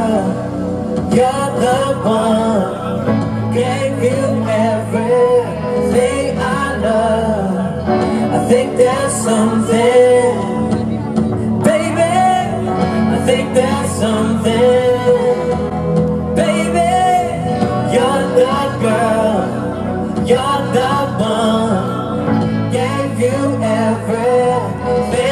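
A live band playing a song: a man sings lead into a microphone over acoustic and electric guitars and drums.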